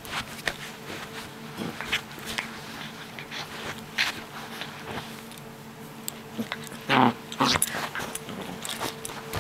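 Maltese dog play-fighting with a person's hand, making short dog noises and biting sounds in irregular bursts, the loudest about seven seconds in.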